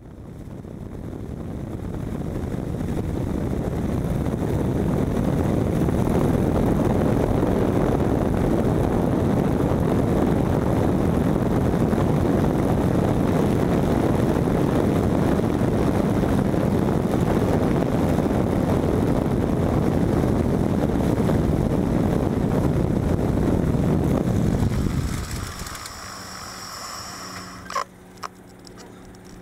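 Light aircraft engine running, a loud steady noise that builds over the first few seconds, then drops away about 25 seconds in to a quieter hum with a few clicks.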